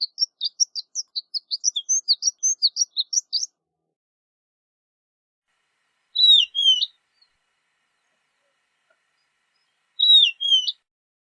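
Horned lark singing: a rapid run of high tinkling notes for about three and a half seconds, then two short phrases of a few gliding notes, about six and ten seconds in.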